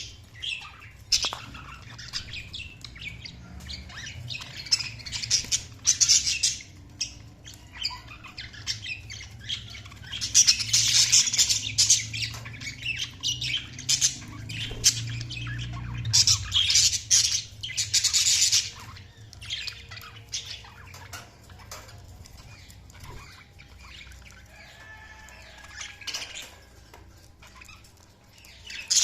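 Budgerigars chattering and squawking in irregular bursts of rapid, scratchy calls, busiest in two spells near the middle and quieter toward the end.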